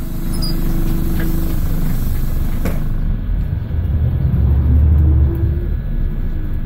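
Scania DC09 diesel bus engine running at low revs, heard from inside the bus. There is a single click just before three seconds in, and a louder, deeper rumble from about four to five seconds in.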